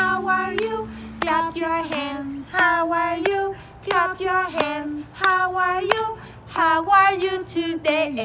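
A woman singing a children's good-morning song, clapping her hands on the beat, about three claps every two seconds.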